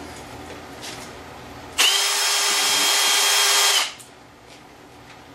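Cordless drill running at speed for about two seconds with a steady high whine, starting and stopping abruptly. It is spinning the input shaft of a Tuff Torq K46 hydrostatic transaxle with the push-release bypass disengaging the drive.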